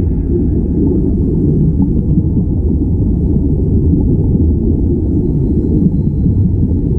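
Steady, muffled underwater rumble of air streaming and bubbling out of the divers' air-supplied diving helmets, recorded underwater.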